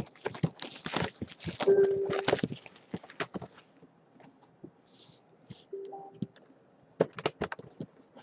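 Plastic shrink wrap crinkling and tearing as it is stripped off a cardboard box of trading cards, with two short squeaks. Near the end come sharp clicks and taps as the box is handled and opened.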